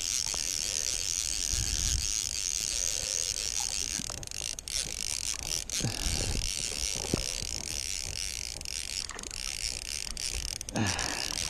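Fly reel's click-and-pawl ratchet clicking rapidly and steadily as line is wound in with a hooked bass on, ending about ten and a half seconds in.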